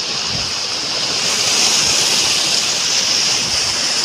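Muddy floodwater rushing fast down an earthen channel in a steady, loud wash of noise, growing a little louder about a second in.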